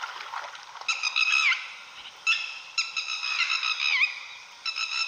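Dholes (Asian wild dogs) calling to one another with repeated high whistling calls. Each call is a held note that drops in pitch at the end, and some of them overlap.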